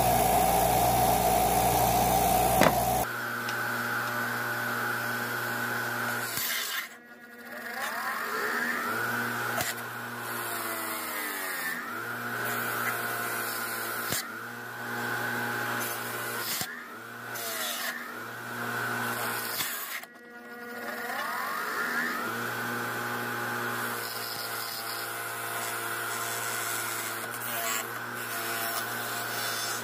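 Bench grinder with a wire wheel running steadily, with small metal engine parts pressed against the spinning wheel to scour them clean. The scraping is loudest for the first few seconds. Twice the motor's sound dips and its pitch sags, then picks back up.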